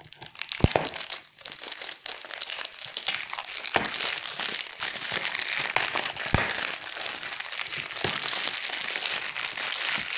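Clear plastic shrink wrap on a DVD case being torn open and peeled off, crinkling continuously, with a few sharp clicks along the way.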